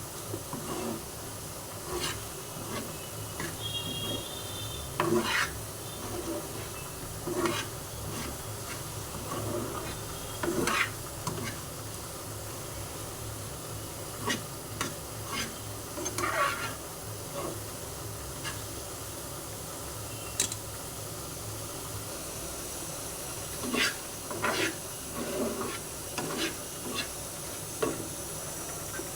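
A spatula stirring and scraping in a pan of sizzling masoor dal, egg and potato tarka: a steady low sizzle under irregular scrapes and clinks against the pan every second or two, with a quieter stretch of sizzling alone past the middle.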